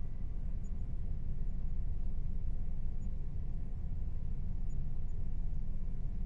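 A steady low rumble of background ambience, even throughout, with no distinct events.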